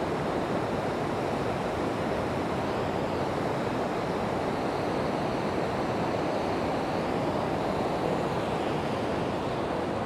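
River rapids rushing steadily over rocks: a constant, even water noise.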